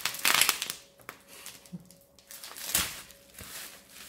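Bubble wrap twisted and popped by hand: a quick rattle of pops and crinkling in the first second, then a few single pops.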